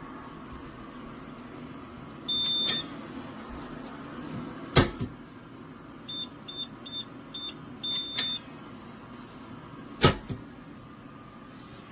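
Electronic beeps from a biometric pistol safe's keypad: one long beep, then five short key-press beeps and a longer beep, all at the same high pitch. Two sharp clacks come between them, one before the short beeps and one near the end, over a steady hum.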